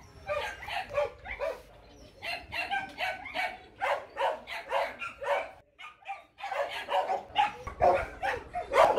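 Young Rottweiler puppies yipping and whining in quick, short, high calls, about three a second, with a brief pause about six seconds in.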